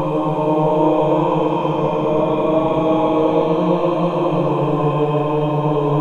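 Howl of a fictional humanoid creature: one long, steady droning call held on a single low pitch with many overtones.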